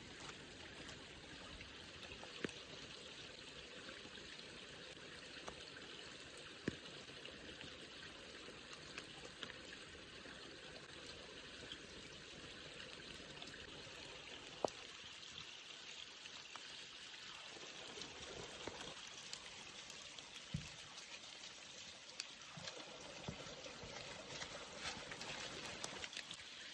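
Faint steady rush of running water, with a few scattered sharp clicks.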